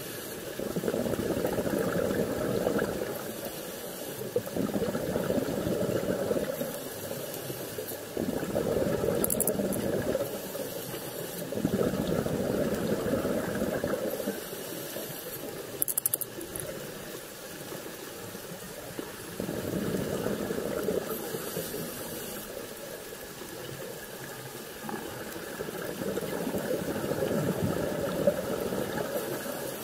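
A scuba diver's breathing heard underwater: rumbling bursts of exhaled bubbles from the regulator, each lasting a few seconds, with faint hisses of inhalation between them.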